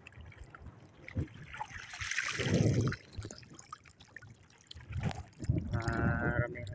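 Sea water splashing as a mesh catch bag is pulled up out of the shallows, then trickling and dripping from the bag as it drains.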